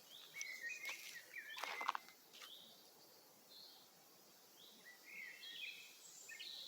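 Several forest birds chirping, with short high notes scattered throughout and a cluster of calls near the end. A few sharp crackling clicks come in the first two seconds; the loudest is just before two seconds in.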